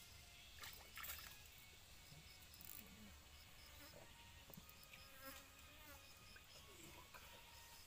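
Near silence with faint insects: short high-pitched chirps in small runs, and a few soft clicks.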